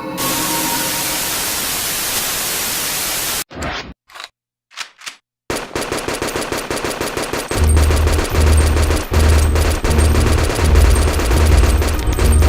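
Static hiss for about three and a half seconds, a moment of near silence broken by a few short bursts, then rapid machine-gun fire as a sound effect in a song intro, joined about halfway through by a heavy, pulsing bass beat.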